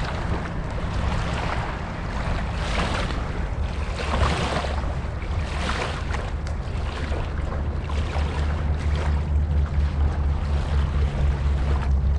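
Wind buffeting the microphone outdoors: a steady rushing noise with irregular gusts and a heavy low rumble that grows stronger partway through.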